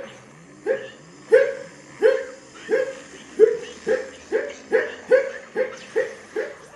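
Cartoon character hiccuping over and over, about a dozen sharp voiced hiccups that come faster in the second half: hiccups from having gobbled all the gum.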